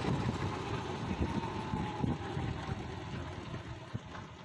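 Motorcycle engine running at low speed with road and wind noise as the bike slows, the sound steadily dying down toward the end.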